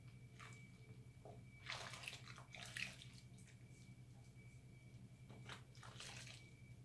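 Faint wet squishing of hands working a bar of recycled soap into lather over a sink of suds. It comes in a few soft bursts, most clearly around two to three seconds in and again near the end, over a steady low hum.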